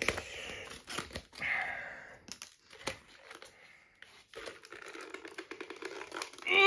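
Plastic figure packaging being torn open by hand: crinkling plastic and a silver seal strip peeling off, with scattered sharp clicks and scraping.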